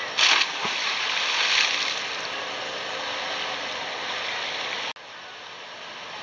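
A person plunging into a swimming pool: a sudden splash just after the start, then churning water settling for a second or two over a steady background hiss. The hiss drops off abruptly about five seconds in.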